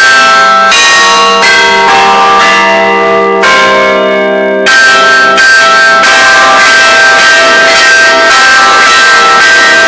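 Church bells of a Russian Orthodox cathedral ringing. Single strokes come a little under a second apart, then about halfway through a louder, denser run of overlapping strikes on several bells takes over.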